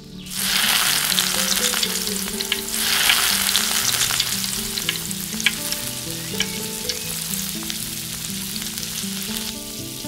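Breaded fish chops deep-frying in hot oil in a small iron kadai: a sudden hiss as the first chop goes in, a second surge about three seconds in, then steady sizzling with scattered crackles and pops that eases off near the end.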